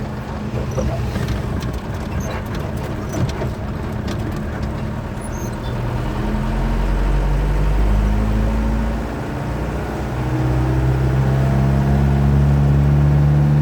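Truck engine accelerating. Its pitch rises from about six seconds in, drops and dips briefly near nine seconds, then climbs and grows louder again. There are a few clicks and rattles in the first few seconds.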